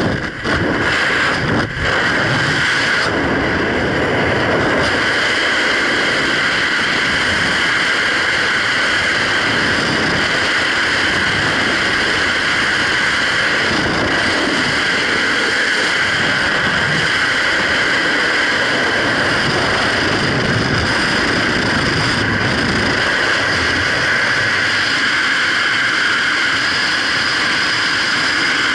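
Steady freefall wind rushing over a skydiver's camera microphone, with brief dips in the first two seconds as the jumpers tumble off the exit.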